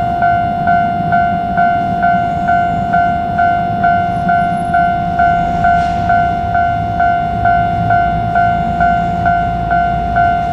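Japanese railway level-crossing alarm ringing, an electronic two-tone ding repeating evenly about twice a second, with a low rumble underneath that swells near the end.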